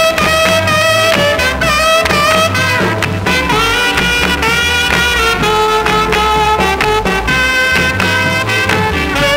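A 1961 swamp pop record playing an instrumental passage: long, slightly wavering held horn notes over a steady rhythm-section beat.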